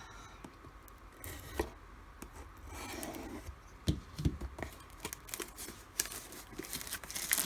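Plastic wrapping being torn and crinkled off a box of trading cards, with scattered taps, rubs and a few soft thumps of cardboard being handled.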